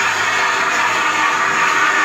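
Steady metal grinding: a motor-driven grinder working the rim of a large steel ring for a tyre-retreading machine as the ring turns on a lathe.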